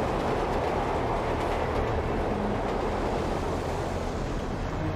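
An elevated train passing on its overhead track, a steady rumbling rush of wheels and cars.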